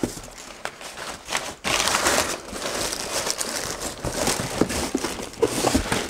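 Crumpled brown kraft packing paper rustling and crinkling as it is pulled out of a cardboard shipping box, with cardboard scraping and a few knocks near the end as a long inner box is lifted out.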